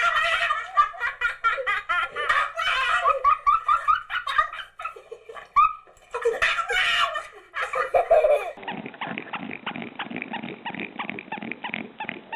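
High-pitched laughing in quick, repeated bursts for about eight seconds. Then a cut to a different clip with a rough, noisy animal sound.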